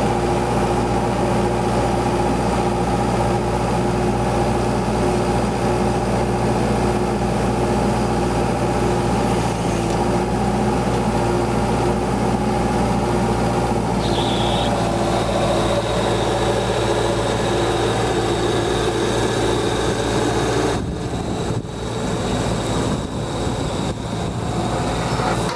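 Beretta T44 well-drilling rig running steadily under load, its engine and hydraulics turning the drill string down the bore hole. About 21 seconds in the sound shifts and briefly dips, then the rig carries on.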